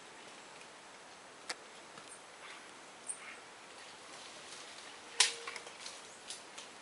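Coatis feeding on oranges: scattered small clicks and rustles, with one sharp knock about five seconds in.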